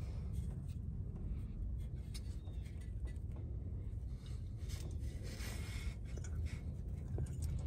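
Ford F-650 tow truck's engine idling with a steady low rumble, faint light ticks and scrapes above it.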